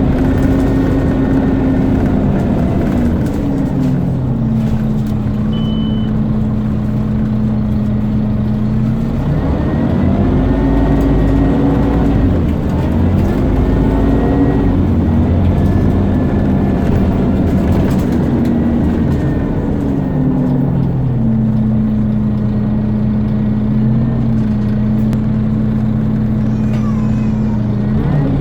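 Scania CN230UB bus's nine-litre five-cylinder diesel engine pulling through its gears. Its pitch rises and then falls back several times, with steady stretches between.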